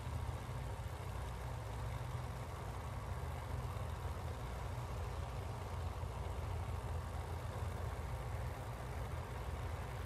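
Pro Modified drag car engine idling steadily at the starting line before a run: a low, even idle with no revving.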